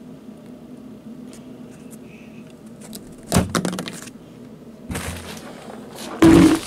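A hand knocks a small plastic figure over on a cardboard surface: three short knocks and scrapes, about three seconds in, about five seconds in, and the loudest near the end.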